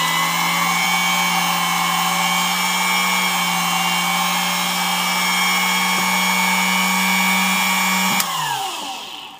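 Brushed motor of a Dumore sensitive drill press running at full speed with a steady high whine, then switched off about eight seconds in and winding down, its pitch falling. The owner suspects something isn't quite right with the motor, as it was slow to come up to speed and dropped in speed.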